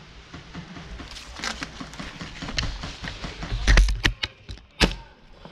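Leafy camouflage rustling and brushing close to the microphone as the wearer moves, with scattered sharp knocks and clicks; the loudest is a heavy thump about four seconds in, followed by another sharp crack about a second later.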